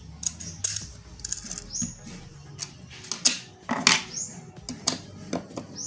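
Small plastic PCB standoffs and screws clicking and knocking against a circuit board and a hard tabletop as they are handled and fitted: a dozen or so irregular sharp clicks with a few short scrapes.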